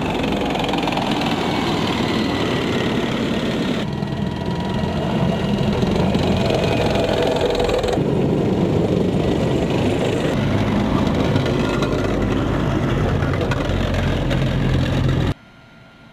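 M1A2 Abrams tanks driving, their gas-turbine engines running loud and steady. The sound changes abruptly about four and eight seconds in, then stops suddenly near the end.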